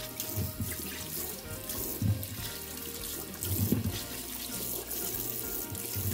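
Kitchen tap running into a sink, the stream splashing over zucchini as gloved hands rub them clean, with a few soft knocks about two and three and a half seconds in.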